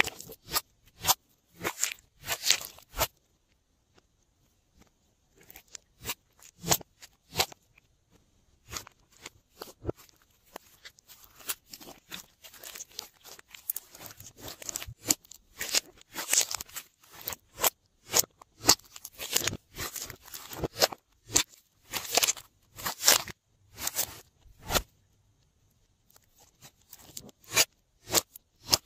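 Hands squeezing and pressing glossy slime, giving off a quick, irregular run of sharp clicks and pops, broken by a couple of short pauses.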